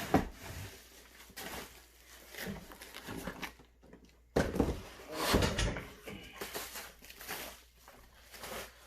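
Loose metal and plastic parts of an aftermarket air intake kit being rummaged through and lifted out of a cardboard box: irregular knocks, clatter and rustling, loudest at the start and again about four to five seconds in.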